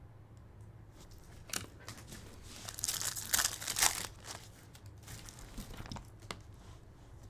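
Foil wrapper of a Topps Chrome trading-card pack being torn open and crinkled, loudest from about two and a half to four seconds in. A few short clicks come before and after as the cards are handled.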